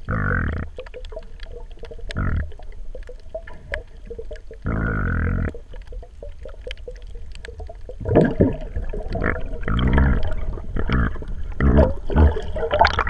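Muffled underwater water noise: a few separate whooshes in the first half, then from about eight seconds in a busier run of bubbling, gurgling and sloshing. The bubbling comes from the water stirred up around a snorkeler near the surface.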